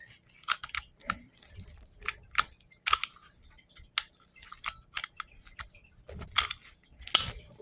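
Quality Firearms .25 ACP pocket pistol being worked by hand, its slide and hammer being racked and fumbled during disassembly: a run of sharp, irregular clicks and clacks, a few louder ones standing out.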